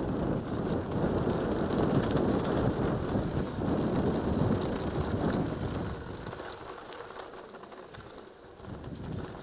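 Wind rushing over a helmet-mounted camera's microphone together with mountain bike tyres rolling and crunching over sand and loose gravel. The noise is strong for about six seconds, then dies down noticeably.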